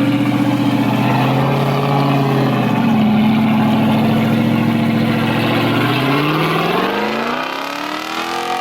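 Off-road 4x4's engine running at steady revs, then revving up, rising in pitch over the last couple of seconds.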